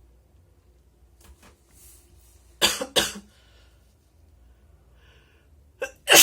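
A person coughing twice in quick succession after a few faint breaths. Near the end another short burst comes, followed by a louder one.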